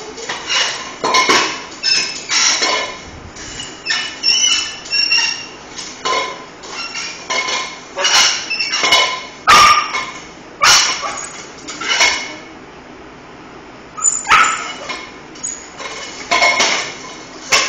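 A pet dog barking repeatedly in short, sharp barks, about one a second, with a brief pause about two-thirds of the way through.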